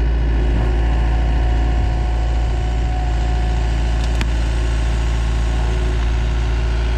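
Engine of a loader or tractor running steadily, with a deep, even drone. A faint high whine holds for a few seconds, and a single sharp click comes about four seconds in.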